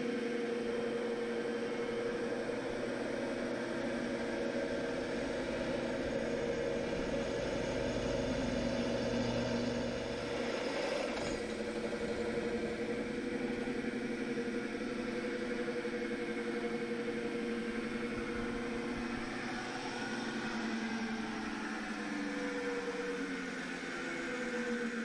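Drill press motor running with a steady hum as the bit bores through a thick steel plate. The pitch drops and wavers near the end.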